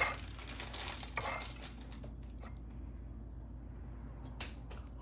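A metal fork mashing banana on a ceramic plate: soft squishing with the tines scraping and tapping on the plate. It is busiest in the first second and a half, then goes on more faintly with a few light taps.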